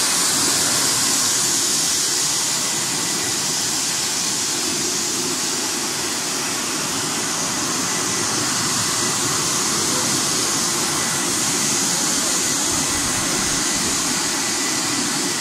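Electric blowers of a french fry air-drying and de-oiling machine running, a steady loud rush of air blasting through the nozzles onto the fries on the mesh conveyor, with a faint steady whine.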